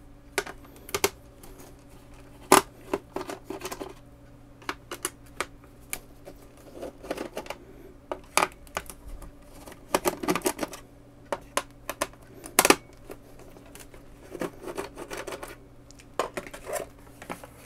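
Screwdriver undoing the screws in the underside of a Commodore C2N (1530) cassette deck's plastic case: irregular clicks, ticks and short scrapes of the driver in the screw heads and of hands shifting the case.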